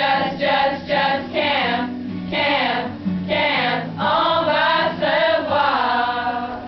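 Audience of mixed voices singing a song together from song sheets, a group sing-along, tailing off near the end.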